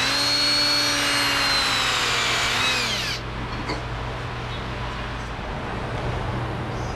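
Cordless drill boring into a steel wheel stud to free an over-torqued, seized lug nut. The motor whines under load for about three seconds, then winds down and stops.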